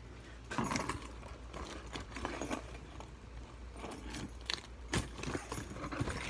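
A key being worked along the packing tape of a cardboard shipping box to slit it open: a string of irregular scrapes and small clicks, with the key ring jangling.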